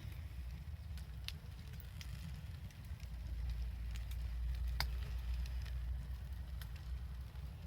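Wood bonfire crackling, with a few sharp pops spaced seconds apart over a steady low rumble.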